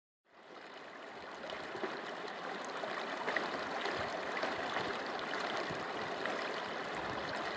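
Shallow creek rushing and splashing over rocks and small riffles, a steady water noise that fades in over the first second.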